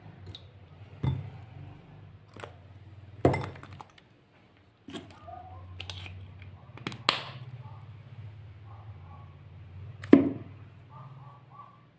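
Glossy slime being handled, giving sharp pops and clicks every two to three seconds, the loudest near the end, over a low steady hum.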